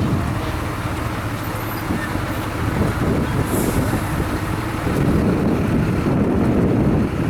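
Steam road roller running, mixed with wind rumbling on the microphone: a steady low rumble with no clear beat.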